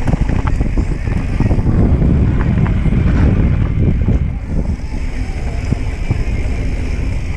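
Wind buffeting the camera microphone as a mountain bike descends a dirt trail at speed, mixed with tyre noise on the dirt and many short knocks from the bike jolting over bumps. The noise eases a little in the second half.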